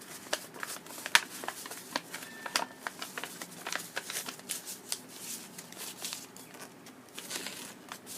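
A sheet of origami paper being reverse-folded and creased by hand: irregular crisp crackles and taps of the paper throughout.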